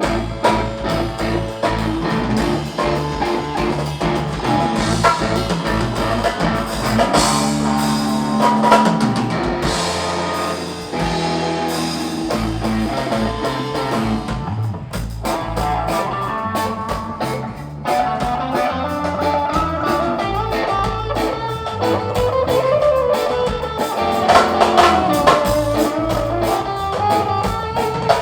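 Live rock band playing an instrumental passage with no singing: electric guitars, electric bass and drum kit. The band comes in all at once right at the start.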